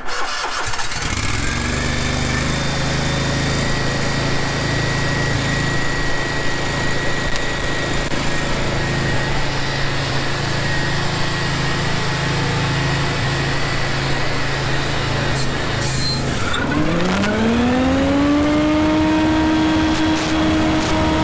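Scag Windstorm stand-on debris blower starting up and running at a low, steady speed. About sixteen seconds in it is throttled up: the pitch rises smoothly, then holds as a higher steady whine at full speed.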